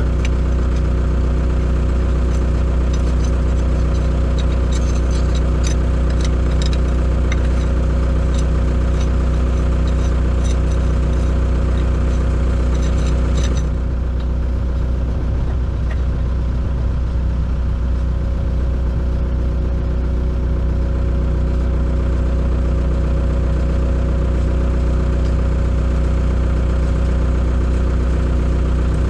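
Excavator's diesel engine idling steadily, with scattered light clicks during the first half and a slight drop in loudness about halfway through.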